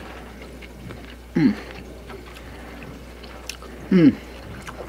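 A man humming 'mmm' twice with his mouth closed while chewing food, each a short hum falling in pitch, about a second and a half in and again about four seconds in, over a steady low hum.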